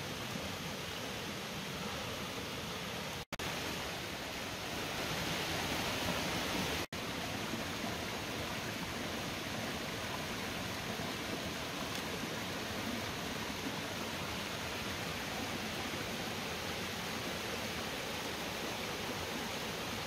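Steady rushing of a rocky mountain stream flowing over stones. The sound cuts out for an instant twice, about 3 and 7 seconds in.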